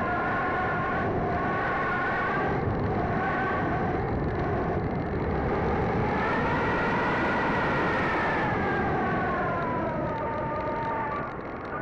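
Sky Surfer RC plane's electric motor and propeller whining steadily, heard from a camera on board, over a rush of wind. The pitch rises about six seconds in, then sinks again, and the sound dips briefly near the end.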